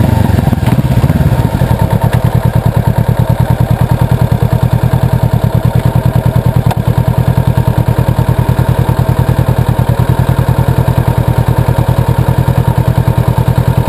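Honda CBR500R's 471 cc parallel-twin engine settling from a blip of revs into a steady idle about a second and a half in, with an even, rapid exhaust pulse.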